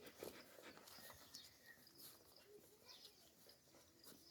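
Near silence, with faint scattered clicks and a few short, high squeaks from small animals.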